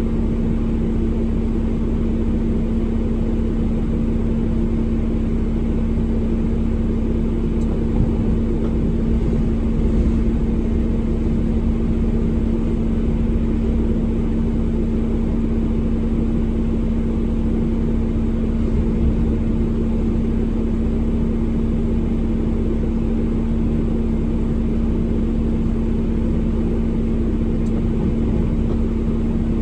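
Heavy truck's diesel engine idling steadily, with a constant low hum, heard from inside the cab.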